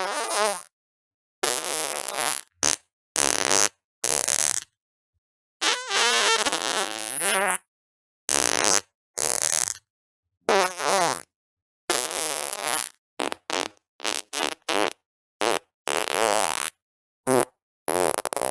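A string of separate fart sounds, about eighteen in all, each cut off by a short silence. Some are brief pops; others are longer wobbling, buzzing blasts of up to two seconds.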